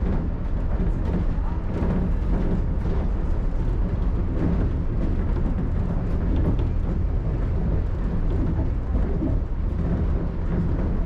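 Shonan Monorail suspended car running along its track beam, a steady deep rumble with no break.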